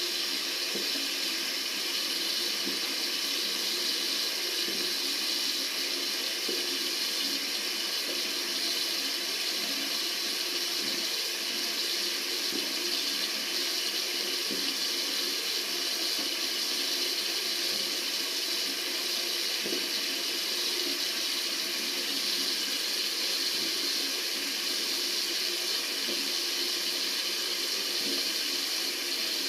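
Water running steadily from a tap, a continuous, unchanging rush of falling water.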